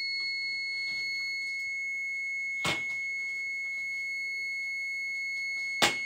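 Multimeter continuity beeper sounding one steady high-pitched beep, the meter's signal of an unbroken circuit between its test probes. Two short clicks come through it, a faint one midway and a louder one near the end.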